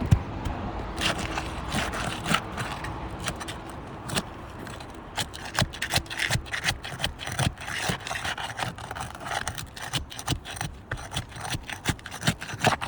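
Metal pry tool scraping and knocking against asphalt roof shingles as a shingle is worked loose, with many irregular sharp clicks and scrapes.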